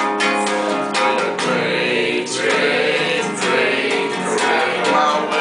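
Acoustic guitar strummed while a group of voices sings along; the singing comes to the fore from about a second and a half in.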